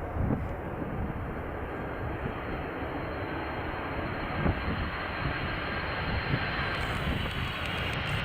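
Boeing 747-400 jet engines on approach: a steady rushing rumble with a faint high whine, slowly growing louder.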